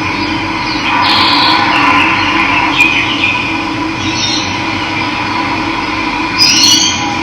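Steady rush of running water with birds chirping over it in short calls, about a second in, near three seconds and again near six and a half seconds.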